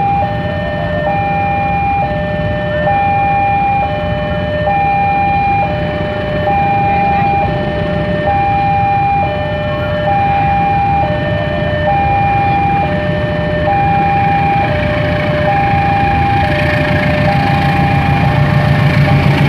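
Level-crossing warning alarm sounding a two-note electronic ding-dong, each note about a second long, over idling motorcycle engines. In the last few seconds a rising rumble builds as the train draws near.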